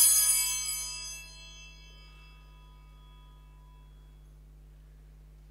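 Altar bells rung at the elevation of the chalice, ringing out and dying away over about two seconds.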